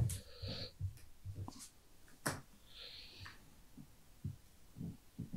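Sleeved playing cards being handled on a playmat: light clicks and taps as cards are picked up and set down, with two brief swishes of cards sliding.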